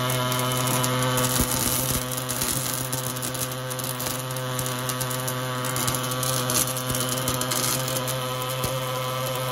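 Welding arc from an automatic seam welder burning steadily inside a steel pipe: a continuous crackling hiss over a steady electrical hum.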